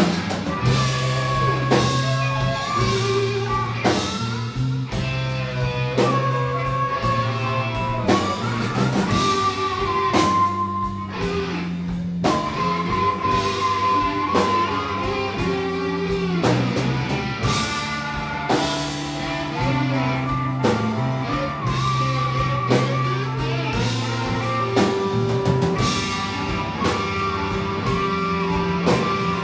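Live blues band playing an instrumental passage: electric guitar, bass and drum kit, with a lead line of held, bending notes.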